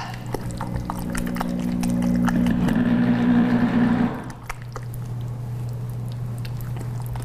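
Spatula stirring a thick cheese dip in a glass mixing bowl, with light taps and scrapes against the glass. A steady humming drone of unclear source is the loudest sound for the first four seconds and cuts off suddenly, over a constant low hum.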